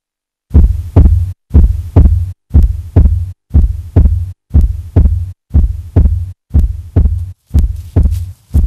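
Heartbeat sound effect: deep double thumps, lub-dub, about once a second, starting half a second in.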